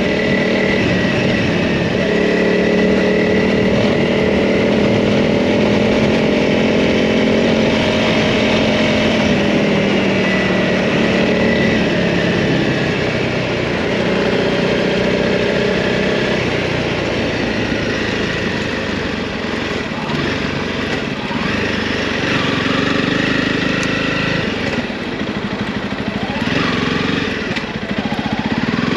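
Honda CRF300 Rally's single-cylinder four-stroke engine running while the bike is ridden, its pitch rising and falling a little with the throttle.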